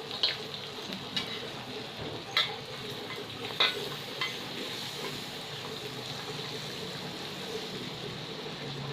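Whole cloves and cinnamon frying in melted butter in a pan, with a steady sizzle. A utensil stirring the pan gives a few light clicks in the first half.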